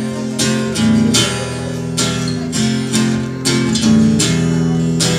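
Guitar strumming a run of chords, each strum ringing on into the next.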